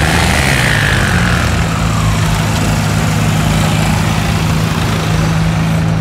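New Holland 3630 tractor's three-cylinder diesel engine running hard under load. Its pitch shifts in the first second or so, then holds steady.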